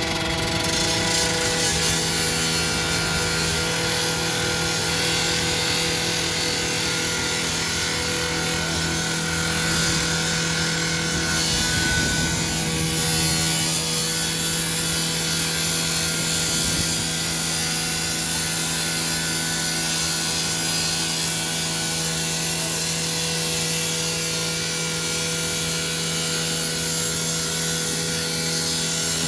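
A large truck engine running at a steady speed, a constant-pitched drone that holds without rising or falling, over a steady wash of street noise.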